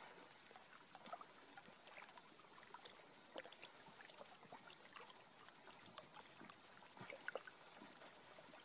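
Near silence, with faint scattered ticks and small splashes of lake water lapping at a rocky shore.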